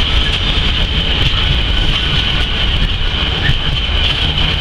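A freight train of Freightliner Heavy Haul bogie hopper wagons rolling past at close range: a loud, unbroken rumble of wheels on rail with a steady high whine over it.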